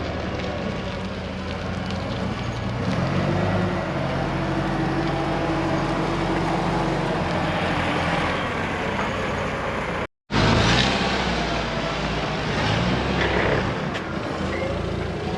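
A vehicle engine runs steadily, its pitch drifting up and down a little. The sound cuts out for a moment about ten seconds in.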